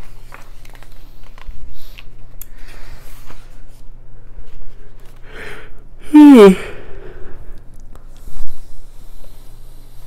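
A man sneezes once into his fist about six seconds in: a quick breath in, then one loud burst that falls in pitch. Around it, soft rustles of the pages of a large hardback book being turned.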